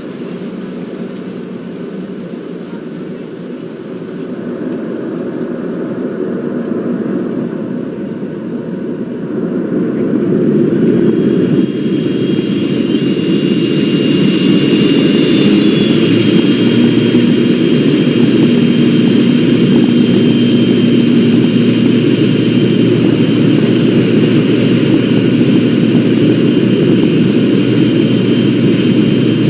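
Airliner jet engines heard from inside the cabin, spooling up for takeoff: a steady rumble grows louder over about ten seconds, a high whine comes in, and then the sound holds steady and loud.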